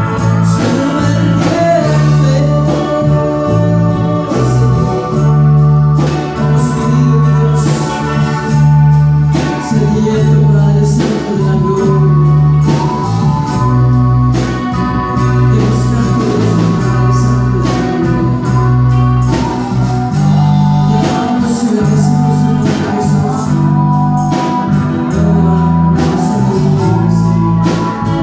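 Live worship band playing a song: bass guitar, drums and keyboard, with a singer's voice over them.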